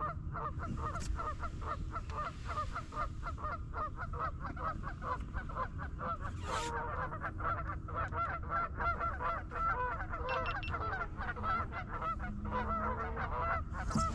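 A flock of geese at their nesting island honking and squawking continuously, many quick overlapping calls, over a low steady rumble.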